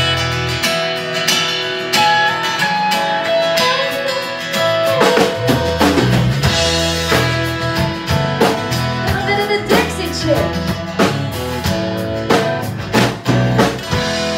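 Live country band playing an instrumental intro: acoustic and electric guitars over bass guitar and drums, with no singing yet.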